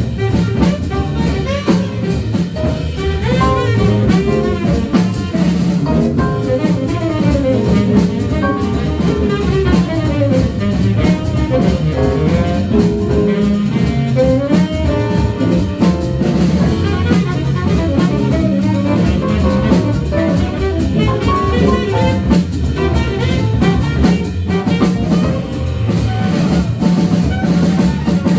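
Live small-group jazz: a drum kit playing busily under a horn melody that slides up and down.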